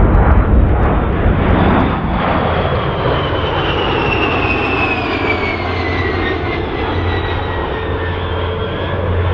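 Formation of two A-10 Thunderbolt II jets and a P-38 Lightning flying past: a loud, steady rush of engine noise, with a high jet whine that falls in pitch as the formation goes by.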